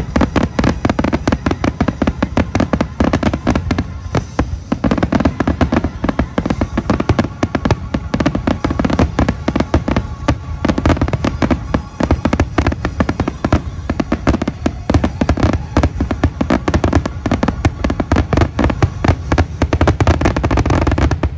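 Consumer fireworks going off in a dense, continuous barrage: many overlapping loud bangs and crackles with no pause between them.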